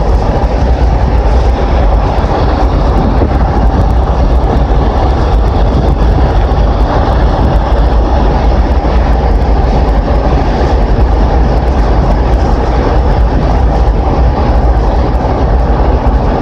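Steady rumble of road and wind noise from a moving car, heard from inside it.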